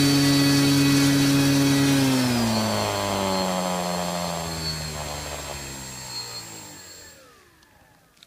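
Electric motor and propeller of an RC foam plane running at a steady high-pitched whir, then throttled back: the pitch falls smoothly over about five seconds as the propeller spins down, and the sound dies out near the end.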